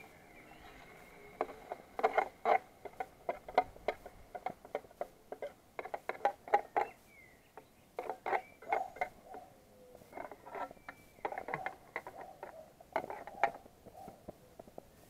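Steel knife blade scraping and tapping against the inside of an aluminium mess tin while working a burger in the pan: a string of short, irregular scrapes and clicks.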